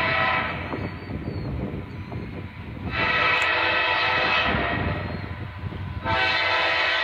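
Diesel freight locomotive's air horn sounding for a grade crossing as the train approaches: one blast ends just after the start, a second comes about three seconds in and fades away, and a third starts about a second before the end. A low rumble from the train runs under and between the blasts.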